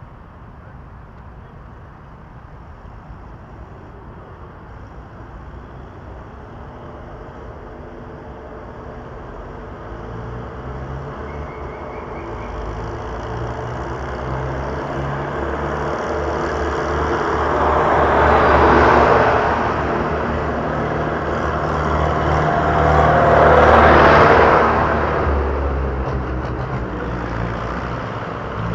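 Farm tractor's engine approaching at a steady low speed, growing louder, then passing close twice in quick succession with engine and tyre noise peaking before it fades away.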